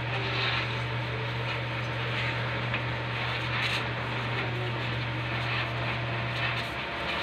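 Electric arc welding on the steel floor of a vehicle body: the arc crackles and hisses over a steady low hum, and the arc breaks off and the hum stops near the end.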